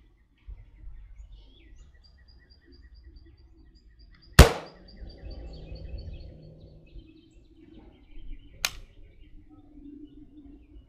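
A single .30-06 shot from an M1 Garand about four seconds in, the loudest sound, with a rumbling echo trailing after it. A second, quieter sharp crack comes about four seconds later. Faint bird chirps repeat in the background.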